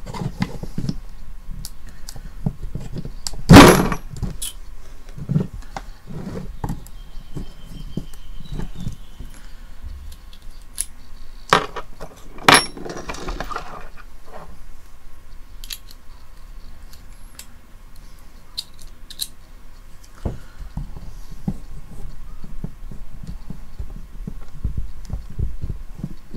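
Screwdriver and loose metal bits clicking, rattling and knocking against a plastic antenna casing as it is worked on by hand, with a sharp knock about three and a half seconds in and two more around twelve seconds.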